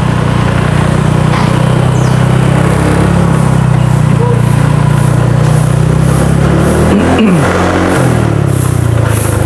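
Motorcycle engine running steadily while riding along a road, under a steady hiss. About seven seconds in, the engine note briefly rises and falls.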